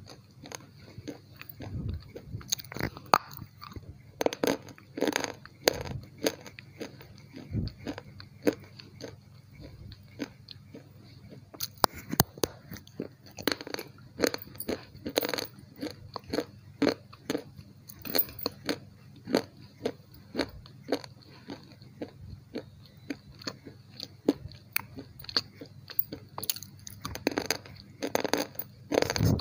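Close-up mouth sounds of biting and chewing something hard and crunchy. Sharp, irregular crunches come several times a second, right at a clip-on microphone by the mouth.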